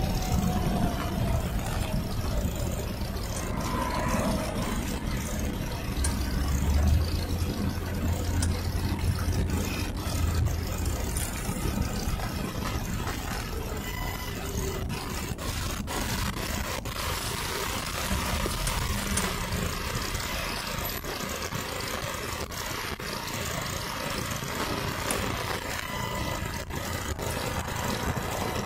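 Car engine and road noise heard from inside the cabin while driving: a steady rumble, with a deeper low hum for about five seconds starting roughly six seconds in.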